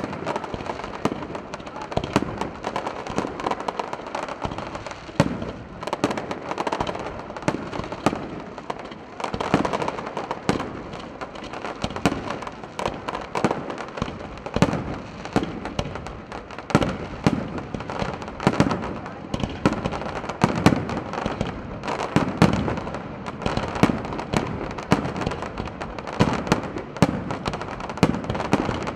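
Fireworks barrage: a dense, unbroken run of bangs and crackling detonations, several a second, with heavier booms among them.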